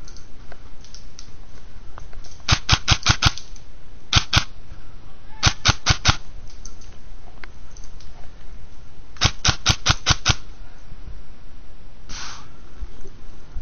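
Airsoft rifle firing four short bursts of rapid clicking shots, about ten a second: a burst about two and a half seconds in, two more at around four and five and a half seconds, and the longest at about nine seconds. A brief hiss near the end.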